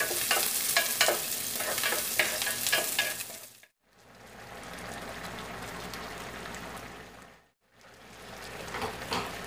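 Sliced onions sizzling in oil in a nonstick pan, stirred with a wooden spatula that taps and scrapes the pan many times. After a brief cut, a steadier, quieter hiss of the pot of chicken in coconut milk simmering, broken by another short cut.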